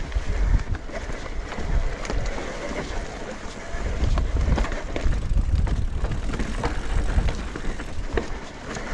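Mountain bike descending a rocky slate path: tyres rumbling over the rock with frequent sharp knocks and rattles from the bike, and wind buffeting the microphone.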